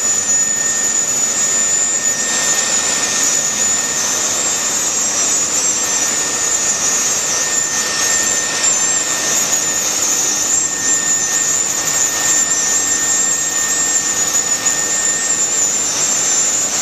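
Leister Bitumat hot-air roofing welder running steadily as it welds a seam of granule-surfaced bitumen membrane: its blower makes a continuous high-pitched hiss with a thin steady whistle.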